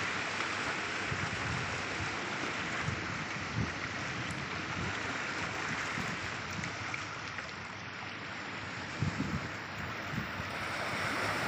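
Sea surf washing in over a rocky shore: a steady hiss of small breaking waves and water running among the rocks. Wind buffets the microphone in low gusts a few times.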